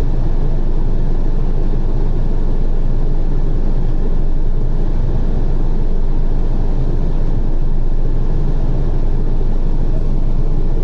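2005 Chrysler PT Cruiser running steadily at idle with the air conditioning switched on.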